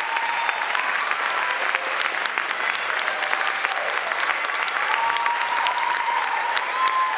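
A crowd clapping steadily, many hands at once, dense and even.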